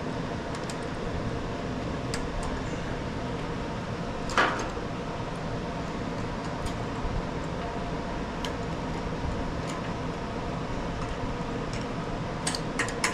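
A steady mechanical hum in the background, with scattered light clicks and one louder knock about four seconds in. The clicks and knock come from hands fitting a rubber fuel line and its hose clamp onto a small engine's carburetor.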